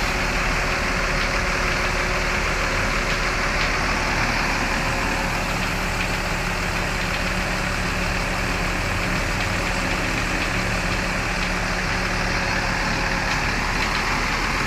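Rear-mounted diesel engine of an intercity bus running steadily, heard from inside the cabin, with a faint steady whine that the crew puts down to the fan belt in the rear engine room.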